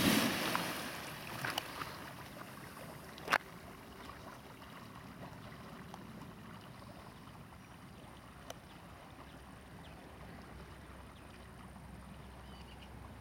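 Splashing as a Dogo Argentino lands in a pond, fading over the first second or two, then the quieter sloshing of the dog swimming. A single sharp click comes about three seconds in.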